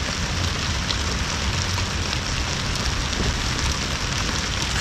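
Steady rain falling on the boat and the lake surface, an even patter with a low rumble underneath.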